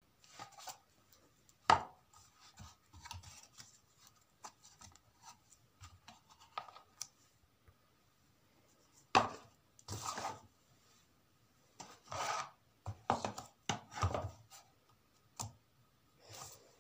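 Objects being handled and moved by hand on a hard surface: irregular knocks, scrapes and rubbing. There are sharp knocks about two seconds in and about nine seconds in, and a denser run of scraping and knocking after that.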